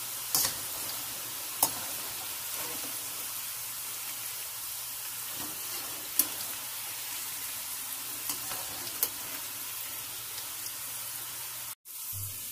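Potato fries sizzling steadily in hot oil in a kadhai as a wire-mesh spider strainer stirs and lifts them, with a few sharp clicks along the way. The sound drops out briefly near the end.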